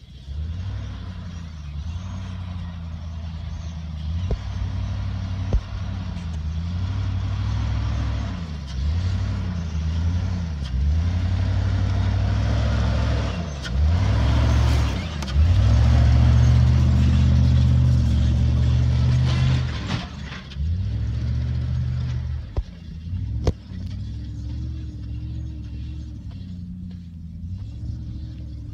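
Truck engine revving up and down again and again under load in deep soft sand, loudest about halfway through, with a few sharp knocks from the vehicle bouncing.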